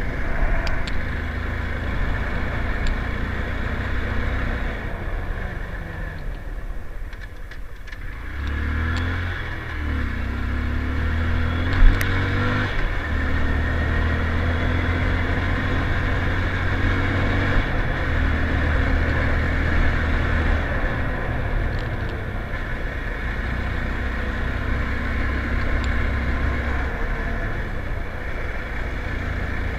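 Motorcycle engine running while riding, with wind rushing over the microphone. It eases off about six seconds in, then picks up again with rising revs. There is one sharp knock about twelve seconds in.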